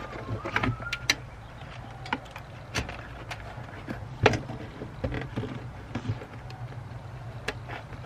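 Scattered clicks and taps from hands working wiring and trim inside a car door, over a steady low hum; the sharpest click comes a little past the middle.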